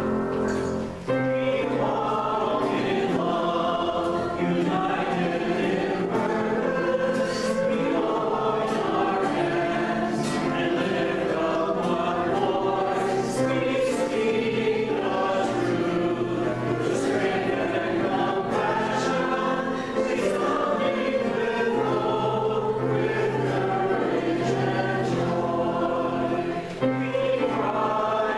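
Small church choir singing a worship song together, accompanied by guitar and piano.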